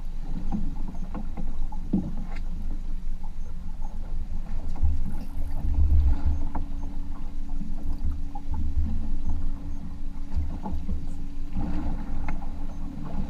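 Open-air sound on a small fishing boat at sea: an uneven low rumble of wind and water with scattered small knocks. A steady low hum sets in about five seconds in.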